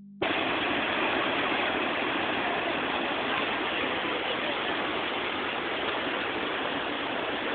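Ocean surf breaking on the shore: a steady rushing hiss of waves.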